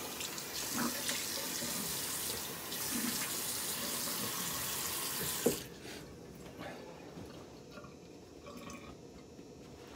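Bathroom sink tap running with water splashing as a face is wetted, shut off about five and a half seconds in with a click; after that, faint rubbing of a towel over the face.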